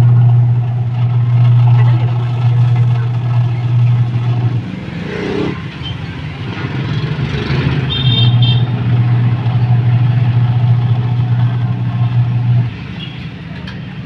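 Washing machine motor humming as it drives the V-belt and drum pulley. It runs for about five seconds, stops, starts again a few seconds later for about four and a half seconds, then stops near the end.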